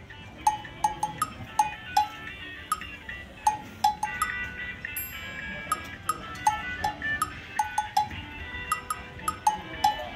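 Light background music made of short struck, bell-like notes at several pitches, like cowbell or mallet percussion, in a quick bouncy pattern.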